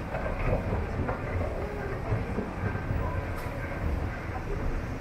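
Escalator running under a rider, a steady low rumble with faint irregular clicks.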